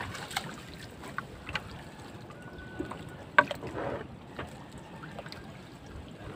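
Nylon gill net being handled by hand as fish are picked out of it: scattered rustles and small snaps, with one sharper click about three and a half seconds in, over a faint steady hiss of wind and water.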